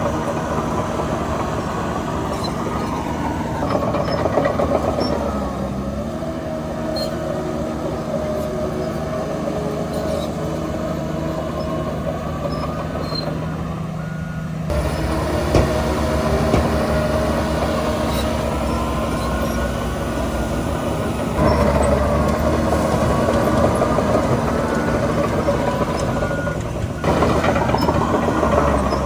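Heavy diesel engines of earthmoving machines, a bulldozer and dump trucks, running steadily under load, their pitch rising and falling as they work. The sound changes abruptly about halfway through, again a few seconds later, and once more near the end.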